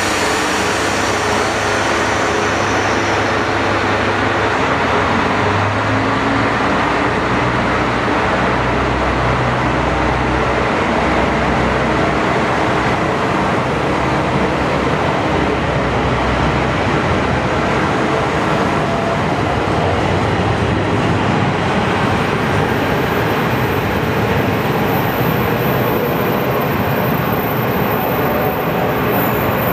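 JR Kyushu KiHa 125 diesel railcar pulling out of the platform: its diesel engine running under power as the train accelerates away, with steady rail and running noise.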